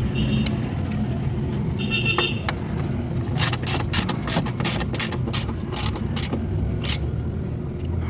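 Hand ratchet wrench clicking as a suspension bolt is tightened: about a dozen quick, even clicks over some three seconds midway, over a steady low hum.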